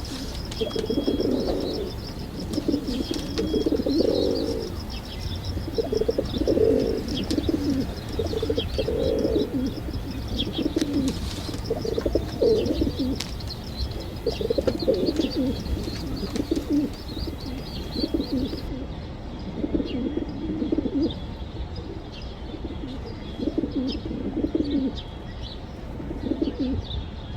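Pigeons cooing, one low coo after another every two seconds or so, with short high chirping over them.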